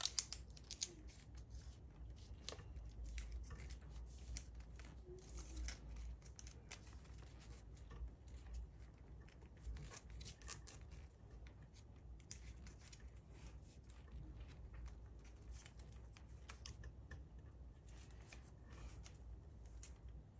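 Origami paper being folded, tucked and creased by hand: faint, irregular paper rustles and crinkles.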